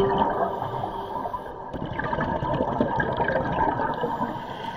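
Underwater gurgling and rushing of a scuba diver's exhaled regulator bubbles, heard through the camera housing, rising and falling unevenly.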